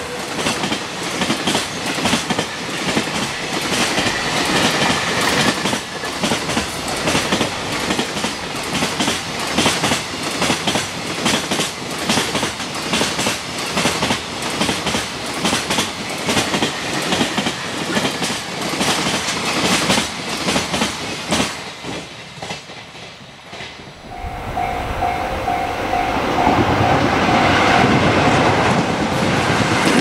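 Long freight train of container wagons passing at speed over jointed rail, its wheels beating a rapid, steady clickety-clack at the rail joints; the rolling fades away a little after twenty seconds. Then a level-crossing warning bell rings in short repeated tones while the low rumble of an approaching train builds.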